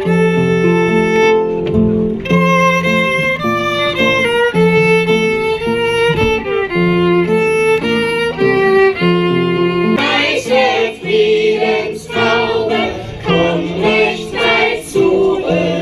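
Music: a melody of held notes over sustained lower notes, turning busier with quick accented notes about ten seconds in.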